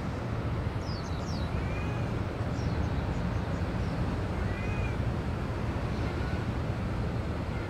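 Kitten mews: two short, high-pitched calls, about a second and a half in and again near the middle, over a steady low rumble.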